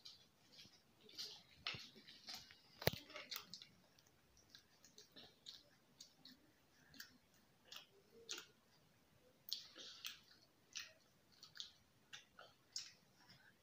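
Faint, irregular clicks of two children chewing and picking french fries and sandwich off paper plates, with one sharper click about three seconds in.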